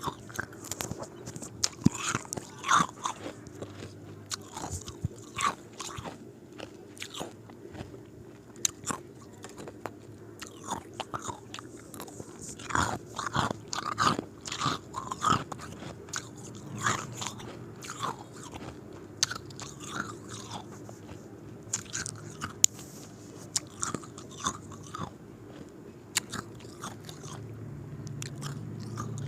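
Square ice cubes being bitten and chewed, with frequent, irregular sharp crunches of the ice breaking between the teeth.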